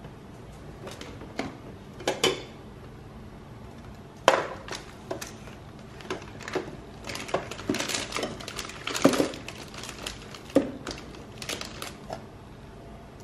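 Supplies being handled and set down in a clear plastic storage bin: irregular clicks, taps and knocks of a jar and boxes against plastic. The sharpest knocks come about four seconds in and again about nine seconds in.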